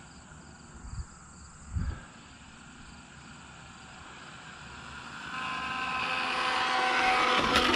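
A vehicle approaching, growing steadily louder over the last three seconds with a steady whine over a rushing noise. Two brief low thumps come about a second in.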